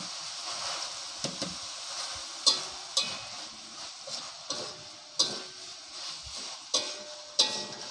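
Shredded cabbage sizzling in a hot metal wok while a slotted metal spatula stirs and tosses it. Sharp scrapes and clanks of the spatula against the pan come every second or so over the steady sizzle.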